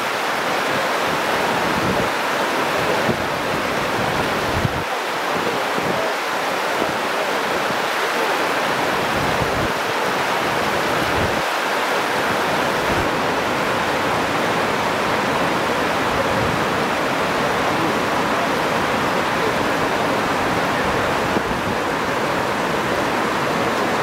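River water rushing steadily over a low concrete weir step, a continuous even rush of flowing water.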